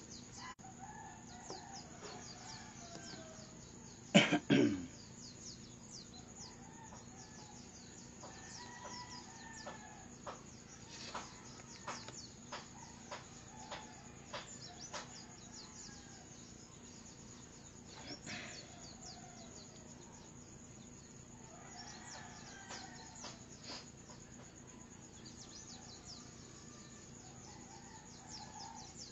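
Roosters crowing faintly in the background at intervals, with one loud, close cough of a few quick pulses about four seconds in and scattered light clicks.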